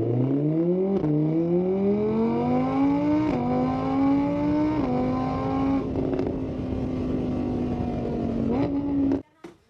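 Car engine accelerating up through the gears: the pitch rises, drops at each shift three times, then holds steady before cutting off suddenly near the end.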